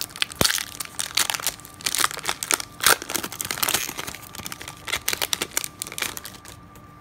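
Foil wrapper of a 1998 Bowman Chrome trading card pack crinkling and tearing as it is pulled open and the cards are slid out, in quick irregular crackles that die down near the end.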